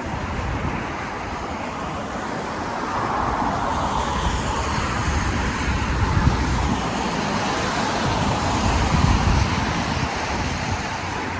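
Steady wind and road rumble on the microphone of a moving bicycle, growing louder a few seconds in.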